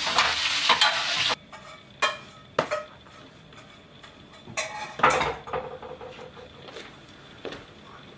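Food sizzling in a hot frying pan, cutting off abruptly a little over a second in. Then scattered clinks and knocks of bowls, plates and chopsticks being handled on a table, a few with a short ring.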